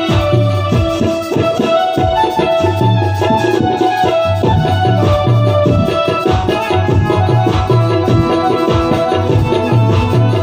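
Instrumental interlude of a Hindi bhajan: tabla playing a fast, steady rhythm under a sustained melody on a Roland electronic keyboard.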